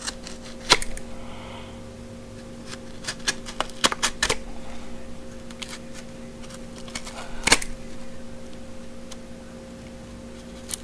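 Plastic blister packaging being cut open with a box cutter and handled: scattered sharp clicks, taps and crinkles. The loudest clicks come under a second in and about seven and a half seconds in, with a quick cluster around three to four seconds in.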